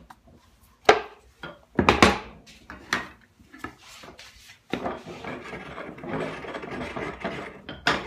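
Wooden knocks and clatter as a saw is lifted out of a wooden saw vise and a board is set into the vise, followed by a few seconds of continuous wood-on-wood rubbing and scraping.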